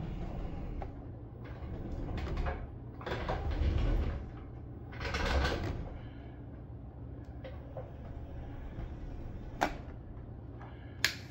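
Radio-controlled R2-unit droid driving across a tile floor: its drive motors and wheels whir in several short spurts over the first six seconds, with a steady low hum underneath. A couple of sharp clicks near the end.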